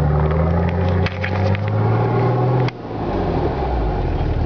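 Nissan Patrol Y60 diesel engine through a straight-pipe exhaust, driving through snow under load. The revs climb, dip about a second in, climb again, then fall off sharply a little before three seconds in. Scattered snaps and clicks come from dry weeds and snow striking the body.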